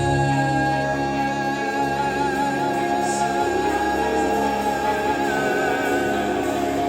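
Live band music: sustained, held notes, with a high held tone that starts to waver about five seconds in.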